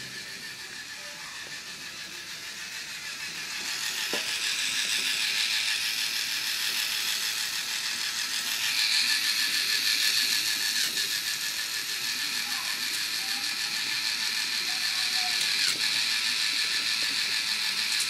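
K'NEX roller coaster's motorized chain lift running: a steady mechanical clatter of many fast ticks, growing louder a few seconds in.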